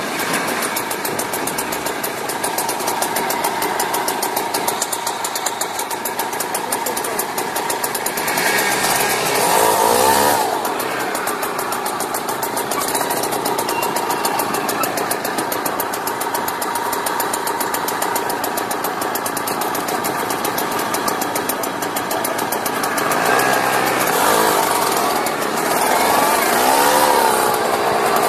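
Small two-stroke Mobylette moped engine running while riding, revving up about nine seconds in and again near the end.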